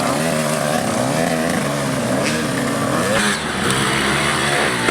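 Several off-road dirt bike engines running together, revving up and down as the bikes ride the course.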